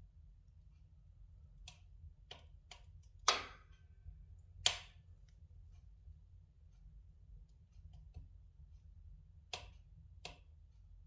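Spruce logs burning in a fireplace: scattered sharp crackles and pops, about eight in all, the two loudest about three and four and a half seconds in, over a low steady rumble of the fire.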